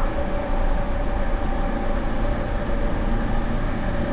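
JR East E231 series electric train heard from inside the motor car at steady speed: rumble of wheels on rail with the traction motor and Mitsubishi IGBT inverter drive holding several steady, even tones. The motor noise is loud and slightly abnormal-sounding on this re-equipped car.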